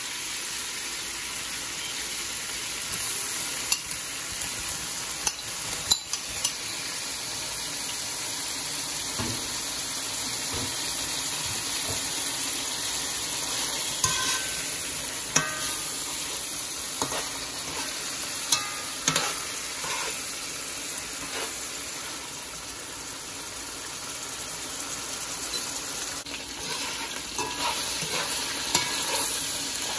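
Sliced sausage sizzling and frying in hot oil in a metal pot: a steady hiss, with occasional sharp clicks as the pieces are dropped in and turned.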